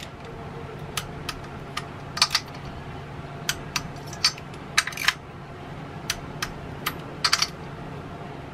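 Ratcheting wrench tightening the cylinder head bolts of a Kohler K181 engine to torque: sharp metallic clicks, single or in quick runs of several, spread irregularly over several seconds as the bolts are worked down in sequence.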